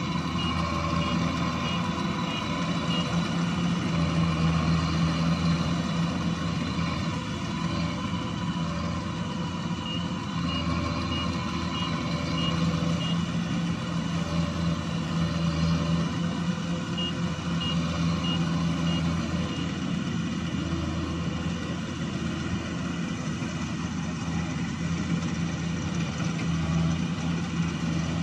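Kubota combine harvester's diesel engine running steadily while working a muddy rice field, joined now and then by short runs of high, rapid beeps.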